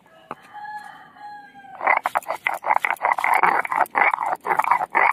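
Ginger being ground on a stone grinding slab (sil-nora) with a stone roller: rhythmic scraping strokes, about three a second, starting about two seconds in. Before the strokes start, a faint drawn-out call is heard.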